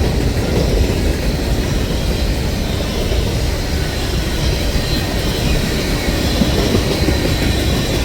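Train rolling past close by, a steady loud rumble of wheels on rail with a faint thin high squeal running through it.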